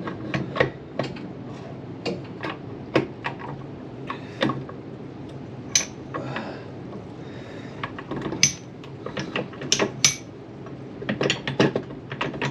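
Steel transmission gears and shafts of an SQS dogbox clinking and clacking irregularly as they are handled and fitted into the gearbox case, with quick clusters of metal taps about two-thirds of the way in and near the end.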